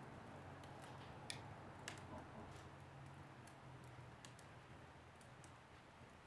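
Wood fire burning in a fireplace, faint, with small crackles and pops at irregular moments over a low steady hum. Two sharper pops come a little over a second in and near the two-second mark.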